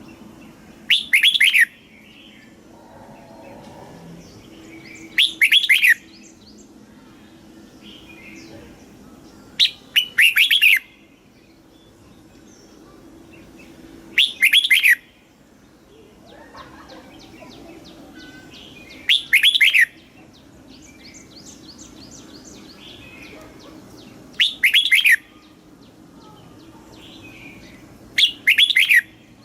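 Red-whiskered bulbul singing its short, loud song phrase seven times, about every four to five seconds, with fainter chirps from other birds in the gaps.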